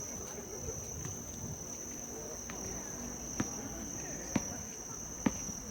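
Crickets chirring in a steady high-pitched drone, with three sharp knocks about a second apart near the end and faint distant voices.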